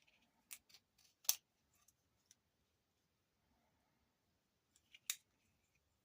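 A few short, sharp clicks from beading supplies being handled, in near silence; the loudest comes about a second in and another near the five-second mark.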